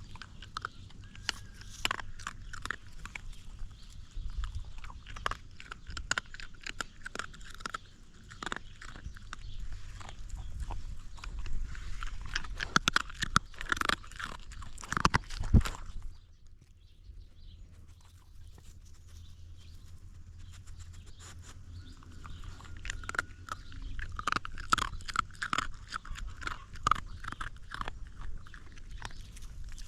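A young dog gnawing and crunching its food very close up, its teeth crackling loudly in quick, irregular crunches. There is a quieter lull about halfway through before the crunching picks up again.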